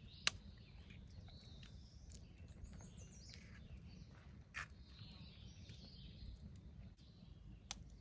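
Quiet open-air ambience: a steady low rumble, faint bird chirps near the middle, and three sharp clicks a few seconds apart.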